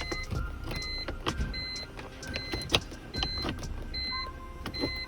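Irregular clicks and knocks of the BMW E46's gear selector and shifter parts being pulled and worked loose by hand. A short high beep repeats about twice a second behind it.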